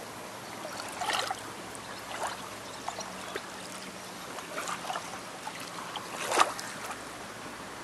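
Small splashes and sloshing of hands moving in shallow sea water, a few brief irregular splashes over a steady low wash of water; the loudest splash comes a little over six seconds in.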